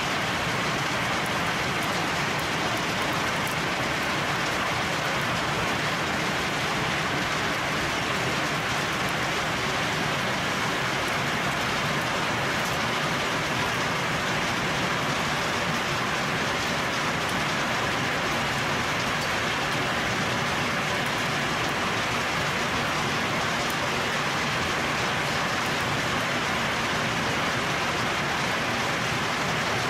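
Heavy rain pouring steadily on tree leaves, a dense even hiss with faint fine patter.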